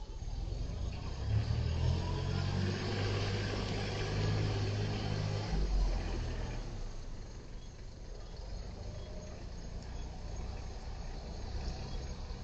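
A motor vehicle's engine running with a steady low hum, building about a second in and dying away after about five and a half seconds, followed by faint background noise.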